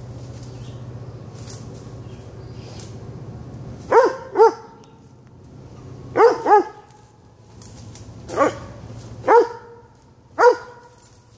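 Weimaraner barking in alarm at an unfamiliar foil balloon: seven short barks, mostly in quick pairs, beginning about four seconds in.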